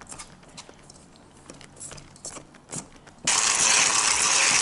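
Electric hand mixer with wire whisk beaters working flour into creamed butter and egg in a stainless steel bowl, to make shortbread dough. For the first three seconds there is only faint clicking. Then the mixer jumps to a loud, steady, hissy whir with the beaters rattling.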